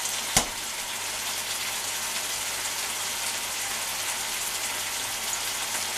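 Paella sofrito of tomatoes, squid and fish frying in a pan, a steady sizzle. A single sharp click sounds about half a second in.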